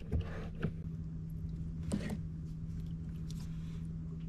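Boat motor running steadily at trolling speed, a constant low hum, with a few light clicks of fishing tackle being handled, the clearest about two seconds in.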